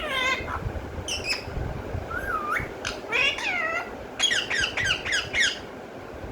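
Pet parrot calling: a string of short, high, squeaky calls, most sliding down in pitch, with a quick run of them about four seconds in.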